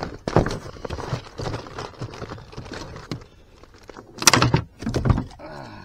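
Handling noise: a plastic bag and fishing gear rustling and clattering, with two louder knocks about four and five seconds in.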